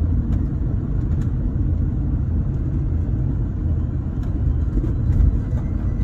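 Motorhome engine and road noise heard inside the cab while driving slowly, a steady low rumble with a few faint clicks.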